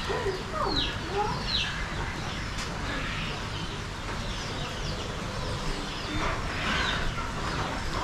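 Chickens calling: a few quick, high, falling chirps in the first two seconds, then fainter clucks and calls, over a low steady hum.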